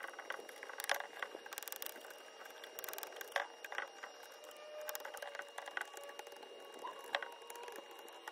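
Hand-held carbide scraper attachment scraping old paint out of the fine grooves of carved wooden bead molding, in short, irregular scratchy strokes with small clicks.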